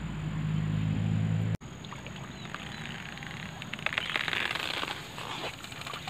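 A low steady motor hum for about a second and a half, cut off abruptly. Then water splashing and trickling with many small ticks, loudest around four to five seconds in.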